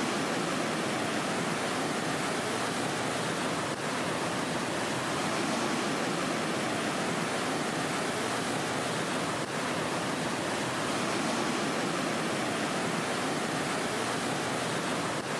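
Steady rushing of a waterfall and whitewater pouring down granite slabs.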